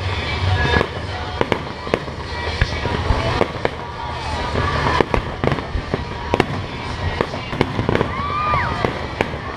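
Aerial fireworks going off: an irregular run of sharp bangs, several a second, over a continuous low rumble.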